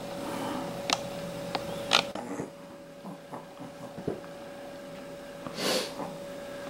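A few sharp clicks on a hardwood floor, the loudest just before two seconds in, as a Pomeranian settles down, then a short breathy hiss near the end, over a faint steady hum.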